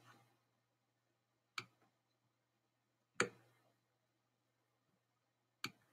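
Three separate clicks of a computer mouse button as a form question is dragged and dropped, over a faint low hum.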